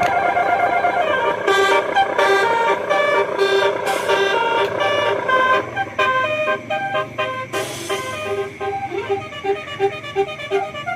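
Telolet bus-horn sound fitted to a miniature RC bus, playing a tune of multi-tone horn notes that change pitch in steps; about six seconds in it switches to a quicker run of short repeated notes.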